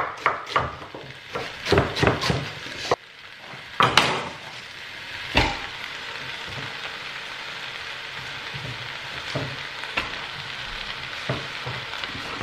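Kitchen knife chopping cabbage on a wooden board, a quick run of chops. About four seconds in the cabbage is tipped into a pot of vegetables frying in oil, and a steady sizzle runs on from there.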